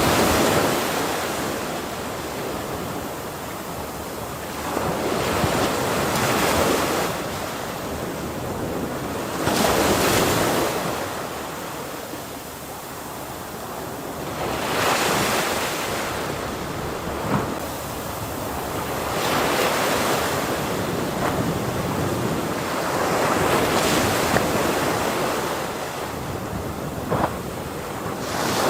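Ocean waves breaking on a shore, the surf swelling to a crash and washing back about every four to five seconds.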